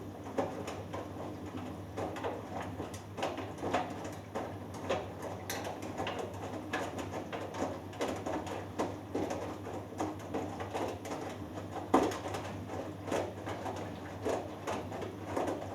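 Hoover Dynamic Next DXA610IW3 washing machine tumbling a 3 kg cotton load in the wash: laundry and water sloshing and thudding in the drum once or twice a second over a steady motor hum, with one sharper knock about twelve seconds in.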